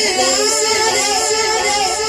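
A man singing a naat, holding long, slightly wavering melodic notes, with no drums.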